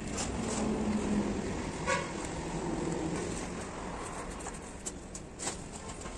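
Street traffic ambience: a steady rumble of passing vehicles, with a few short clicks and knocks.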